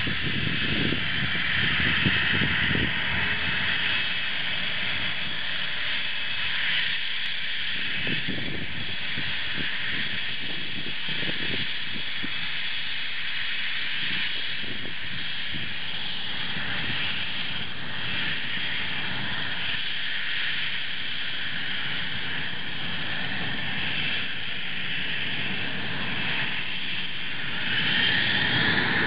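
Panavia Tornado ECR's twin RB199 turbofans running with a steady whine and hiss. Near the end the whine rises in pitch and grows louder as the engines spool up.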